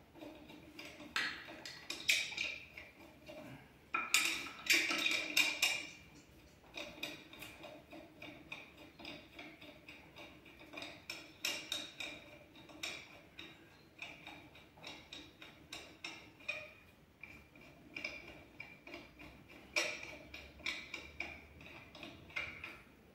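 Wheel bolts being threaded by hand into the hub of a Renault Trafic's steel wheel: light metal clicks and clinks, coming in short runs of quick ticking.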